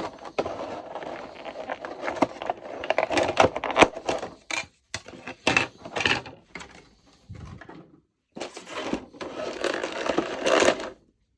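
Action figure packaging being handled: rustling with many small plastic clicks and knocks, in three bursts with short pauses, as accessories are taken out of the tray.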